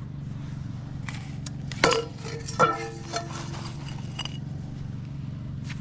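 Ice being knocked loose and lifted out of a dog's water bowl frozen solid overnight: two sharp clunks with a short ring, about two and two and a half seconds in, among a few lighter knocks. A steady low hum runs underneath.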